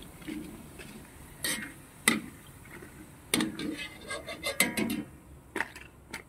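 Wire spider strainer clinking and scraping against a metal wok while puffed fish crackers are scooped out of the frying oil: a few scattered knocks, then a busier run of clatter in the middle.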